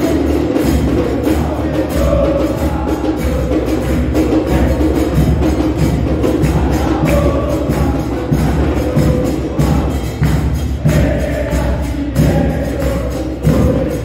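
Football supporters chanting a terrace song together to a steady beat of bombos, large bass drums.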